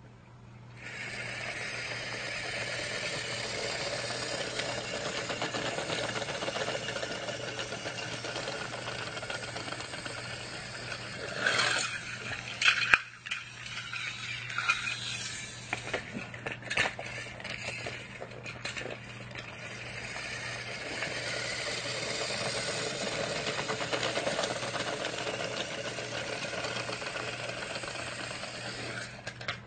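Battery-powered toy train motors whirring and rattling along plastic track. The running drops away around the middle for several seconds of loose clicks and knocks, then picks up again.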